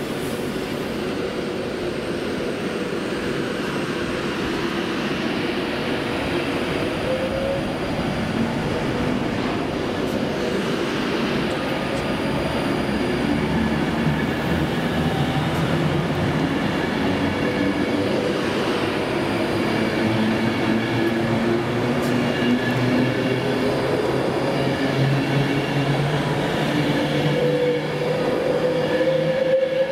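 A Class 390 Pendolino electric multiple unit pulling away and passing close by, gradually getting louder. Its traction motors whine with several tones that slowly rise in pitch as it gathers speed, over the steady rumble of wheels on rail.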